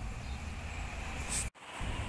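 Outdoor ambience: a steady low wind rumble on the microphone with faint rustling, cutting out briefly about one and a half seconds in.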